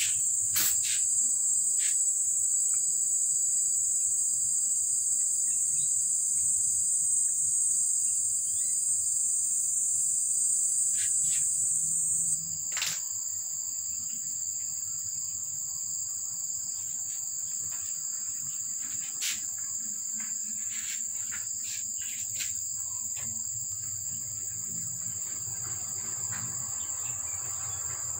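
Steady high-pitched insect chorus, a continuous shrill trilling that drops slightly in loudness about twelve seconds in, with a few faint clicks over it.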